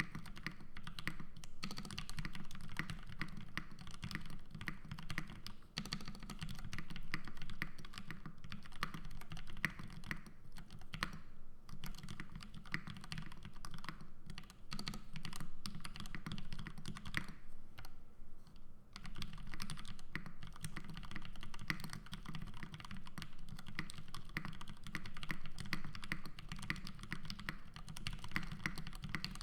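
Fast, steady typing on a Bisoromi RS custom mechanical keyboard with Gateron Ink V2 switches and GMK Alter keycaps: a dense run of keystroke clacks with two brief lulls, one in the middle and a longer one about two-thirds of the way through.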